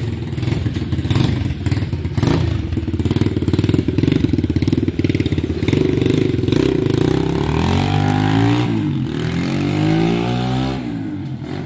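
SY Motos 125cc four-stroke trail bike engine running as the bike pulls away and rides off. In the second half the engine pitch rises and falls several times as it revs up and eases off, a little quieter near the end.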